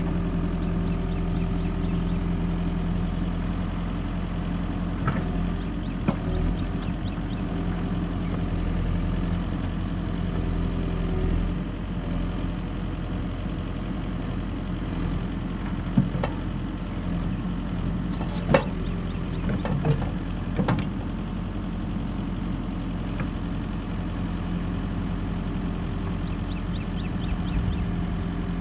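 Tractor-loader-backhoe engine running steadily while the bucket digs a footing trench in clay, with a few sharp knocks from the digging, about four of them standing out over the hum.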